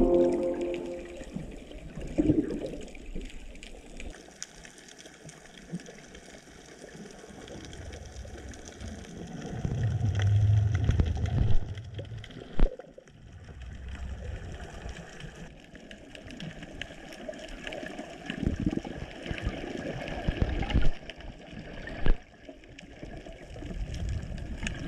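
Underwater noise of water moving around the camera, with low rumbling swells and a few sharp knocks.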